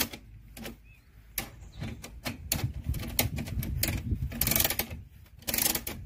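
Ratchet wrench clicking in irregular quick bursts as it is swung back and forth to turn the screw of a scissor jack, raising a car.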